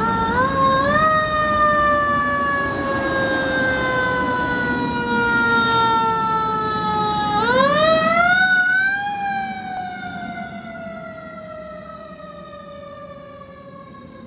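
Fire engine siren wailing as the truck passes: the pitch climbs, slides slowly down for about six seconds, climbs again as the truck goes by about eight seconds in, then slides slowly down again while fading away. A low engine rumble sits under the siren while the truck is close.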